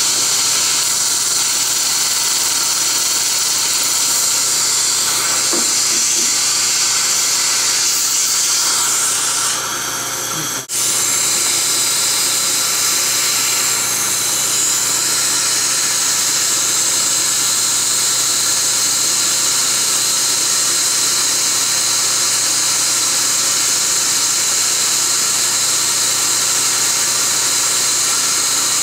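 Biolase Waterlase Er,Cr:YSGG dental laser working inside a tooth during root canal treatment: a steady, high hiss from its water-and-air spray. The hiss dips briefly and cuts out for an instant about ten seconds in.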